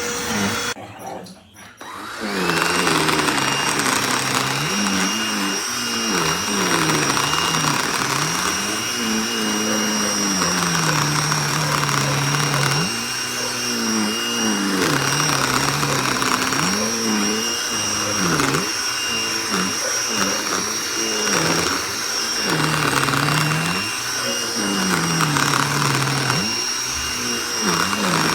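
Cordless handheld pet vacuum running. It starts up about two seconds in after a brief drop-out, then holds a steady high whine while a lower hum rises and falls in pitch.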